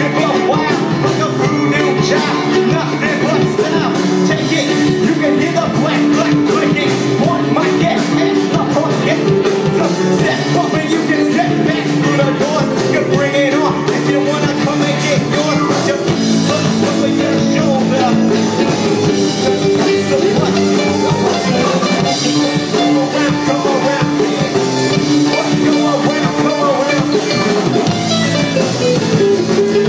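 Live ska band playing electric guitars and drums, with vocals, at a steady loud level.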